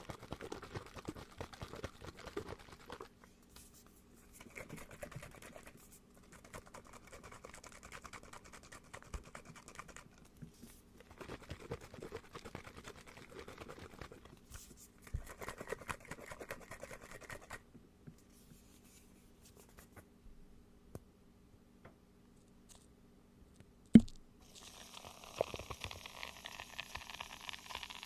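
Close-miked scratching and crinkling of an object handled for ASMR, in several bursts of a few seconds each with short pauses between them. Near the end a single sharp tap, then a steadier hissing rustle.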